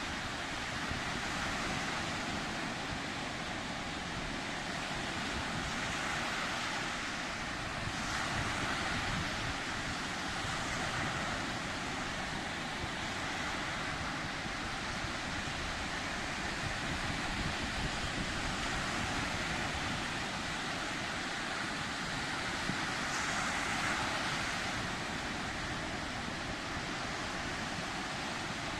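Sea surf: waves washing in continuously, swelling and easing every few seconds, with some wind noise on the microphone.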